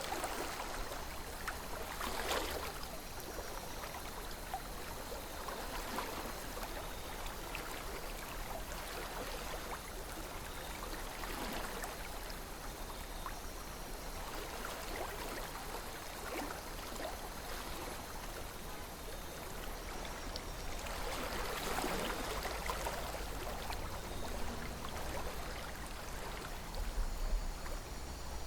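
A calm river flowing, with steady rushing and irregular small gurgles and splashes every second or two. A low rumble runs underneath and grows stronger near the end.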